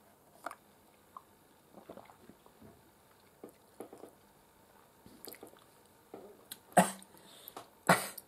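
Faint sipping and swallowing of iced coffee through a straw, with small mouth clicks, followed near the end by two short breathy laughs.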